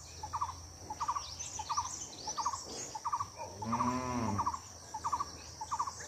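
Forest birdsong: one bird repeats a short low note about every three-quarters of a second while others twitter high, over a steady high insect drone. A single low drawn-out call of about a second comes just before the four-second mark.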